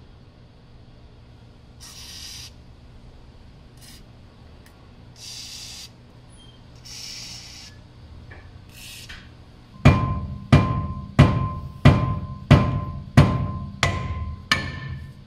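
WD-40 sprayed from an aerosol can in several short hisses, then eight hammer blows on a cast-iron brake disc about two-thirds of a second apart, each one ringing, to knock the disc loose from the wheel hub. The blows are much the loudest sound.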